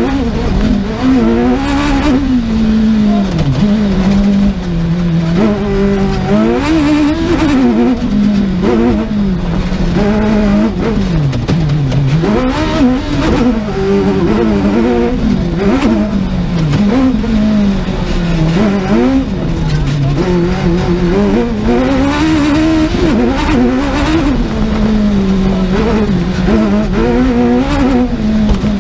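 Suzuki two-wheel-drive rally car's engine revving hard at full stage pace, its pitch climbing and dropping again and again through gear changes and lifts.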